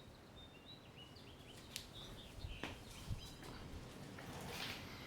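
Quiet scene: a few faint bird chirps in the background, then scattered light clicks and knocks of a motorcycle chain being fed around the countershaft sprocket.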